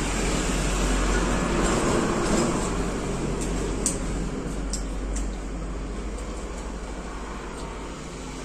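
A steady rumbling background noise that builds over the first couple of seconds and then slowly fades, with a few faint clicks around the middle.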